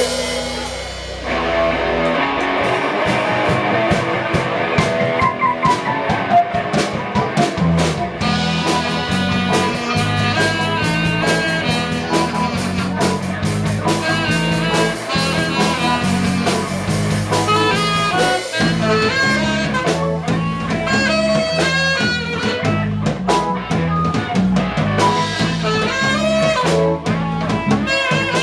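Live band playing an instrumental blues-jazz passage, with drum kit, bass guitar, saxophone, electric guitar and keyboard over a steady beat.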